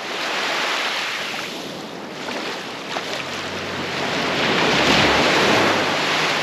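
Ocean waves surging and breaking on a shore, swelling to a peak about five seconds in. A low steady tone joins about three seconds in.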